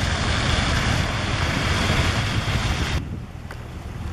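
Vehicles driving through flood water covering a road: a steady rush of churning, splashing water over a low rumble, with wind on the microphone. The rushing drops off sharply about three seconds in.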